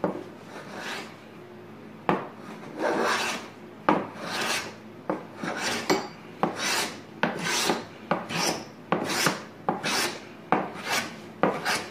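Small wooden smoothing plane of maple and ipe, with a PM-V11 steel blade, cutting shavings from the weathered edge of a very hard ipe board. Short hand strokes start about two seconds in and quicken to about two a second.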